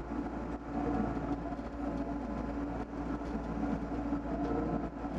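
Doosan DX55 mini excavator's diesel engine running steadily under working load, with a constant low hum.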